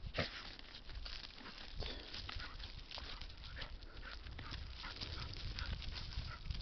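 A dog rooting in loose dirt with its nose: a quick, irregular run of scratchy crackles, broken by short sniffing puffs.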